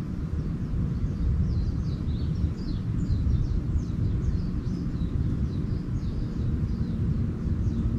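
Small birds chirping in a quick run of short, falling notes, over a steady low rumble that is the loudest thing heard.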